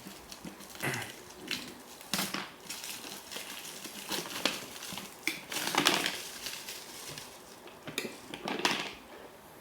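Hard plastic microwave cookware kit, including an idli maker, being handled and its pieces fitted together: irregular rustles, clicks and light knocks.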